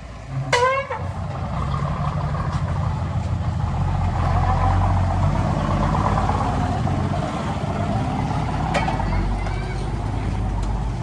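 Heavy diesel machinery engine running steadily, working harder and louder from about two seconds in. A brief sharp sound falling in pitch comes just after the start, and a click with a fainter falling tone comes near the end.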